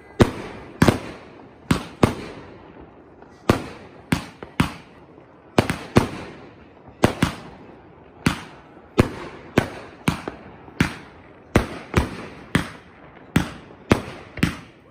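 Aerial fireworks bursting overhead in quick succession: about twenty sharp bangs, often in close pairs, roughly one every half second to a second, each fading away over a fraction of a second.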